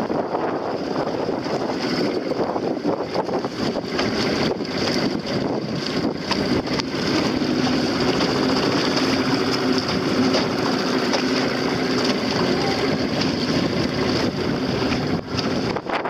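Strong wind buffeting the microphone over choppy water, with the steady hum of an outboard motor towing the dinghy running underneath.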